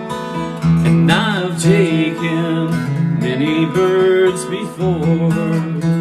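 Song with strummed acoustic guitar, and a voice singing a wavering line from about a second in until near the end.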